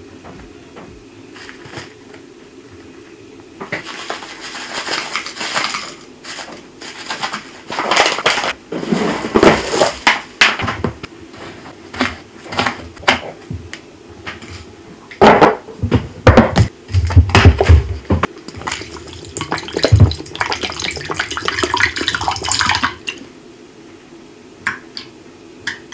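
Kitchen prep sounds: granulated sugar rustling as it is poured from a pouch and scooped with a wooden scoop, sharp knocks and clinks of utensils and containers, loudest in the middle, and soy sauce poured into a small aluminium saucepan near the end.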